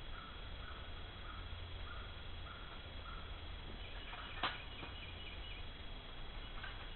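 Faint bird calls: a short call repeated about twice a second, then, about four seconds in, a quicker run of higher chirps. A single sharp click comes midway.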